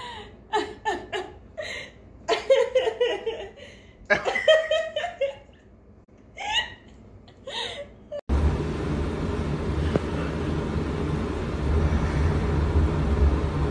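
A person laughing in repeated short bursts. About eight seconds in it cuts off suddenly to a steady low background noise.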